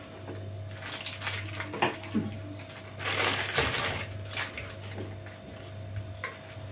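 Crisp ladyfinger biscuits being handled and set down in a glass dish: light dry clicks and scrapes, with a louder crunchy rustle about three seconds in.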